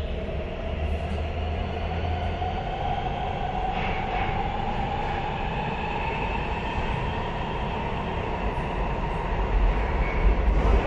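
Nuremberg U-Bahn G1 train heard from inside the car while running: the motor whine rises in pitch over the first few seconds as the train gathers speed, then holds steady over the rumble of the wheels. The rumble gets louder near the end.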